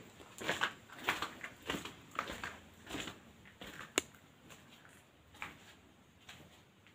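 Footsteps scuffing over a dusty, rubble-strewn floor, irregular and about two a second, with a sharp click about four seconds in; the steps thin out after that.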